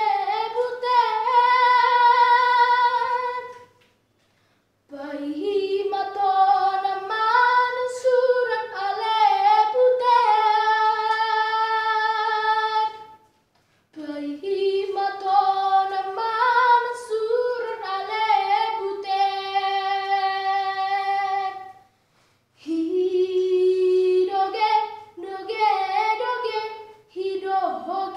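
A boy singing solo and unaccompanied, in phrases ending on long held notes, with short breaks for breath about 4, 13 and 22 seconds in.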